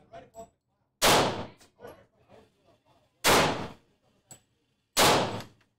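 Three semi-automatic pistol shots, unevenly spaced about two seconds apart, each a sharp crack with a short ringing tail as it dies away.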